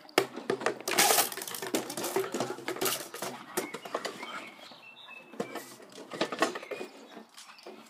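Plastic bottle clattering and skittering across stone paving slabs as a springer spaniel puppy chases and knocks it about: rapid, irregular clicks and scrapes. They are loudest in the first couple of seconds and thin out towards the end.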